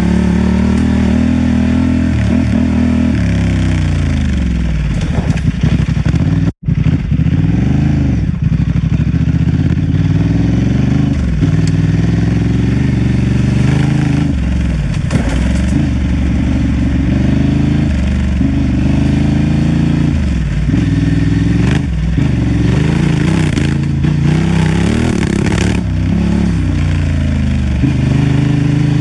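Honda Transalp XL750's parallel-twin engine under way off-road, its revs rising and falling again and again as the throttle is opened and closed. The sound cuts out for an instant about six and a half seconds in.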